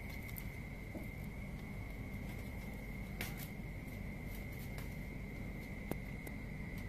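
A steady, unbroken high-pitched insect trill over a low background rumble, with a few faint clicks and taps.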